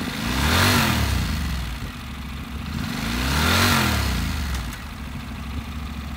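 2016 Honda NC700X's 700cc parallel-twin engine idling, blipped twice on the throttle: the pitch rises and falls back about a second in and again about three seconds later.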